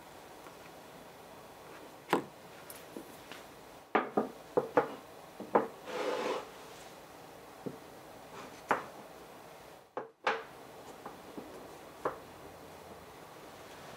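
Scattered light knocks and taps of hands handling a plush toy on a wooden tabletop, with a short rustle of rubbing about six seconds in.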